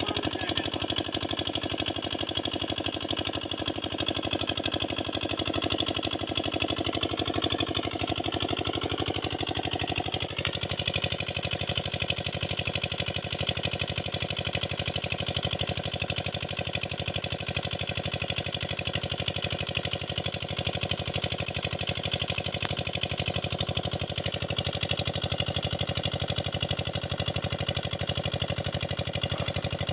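Small engine running steadily with a rapid knocking beat; its tone shifts slightly about ten seconds in.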